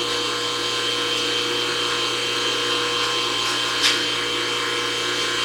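Y-axis feed drive of a Sharnoa CNC knee mill running steadily during homing, a steady whine with several fixed tones, with one short click a little before four seconds in.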